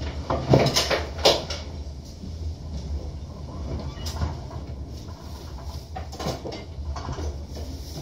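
Irregular knocks and rattling of loose galley items and fittings shifting as the vessel rolls in a heavy sea, over a steady low hum. The loudest knocks come within the first second and a half, with others around four and six seconds in.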